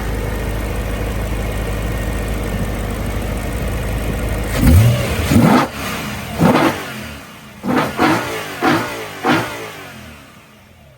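BMW E92 M3 GTS 4.4-litre V8 heard from the front of the car, at the intake and plenum. It idles steadily, then from about halfway it takes a quick series of about seven sharp throttle blips, each rising and falling in pitch, and settles lower near the end.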